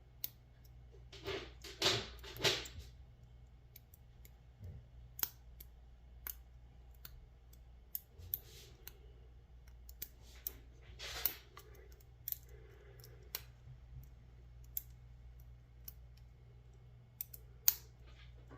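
Lock picks working in the keyway of a Master Lock M5 padlock during single-pin picking: scattered light metallic clicks and scrapes from the pick and tension wrench, with a few louder clusters of clicks.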